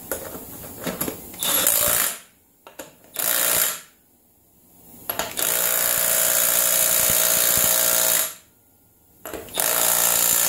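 Cordless impact wrench with a 24 mm socket hammering on the rear axle nut, tightening it in bursts: two short ones, a long one of about three seconds, and a last short one near the end.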